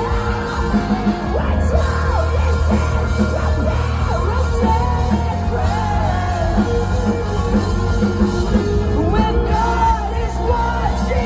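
Live rock band playing loud, with electric guitars, bass and drums, and the singer singing and yelling into the microphone over it.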